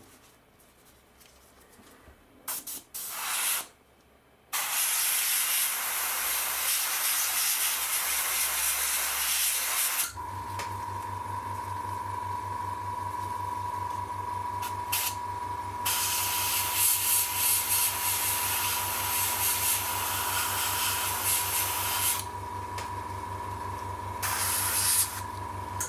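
Airbrush spraying paint in hissing bursts, a short one and then a long steady spray. About ten seconds in, a steady electric hum with a whine comes in and runs on beneath further bursts of spraying.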